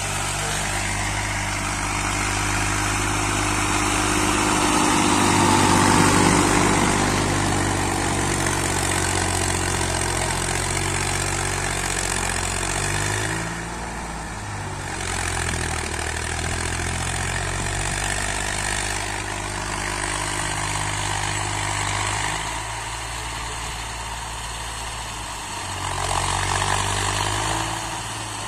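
1962 Massey Ferguson 35 tractor engine running under load while pulling a disc harrow, its pitch wavering up and down. It is loudest about six seconds in, dips briefly around the middle and swells again near the end.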